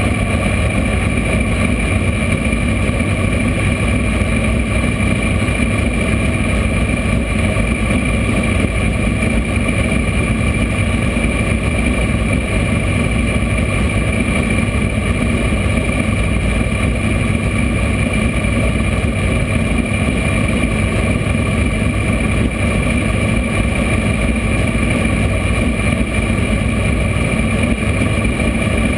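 Dirt-track race car's engine running steadily at a standstill, heard from inside the car through the in-car camera, with no revving.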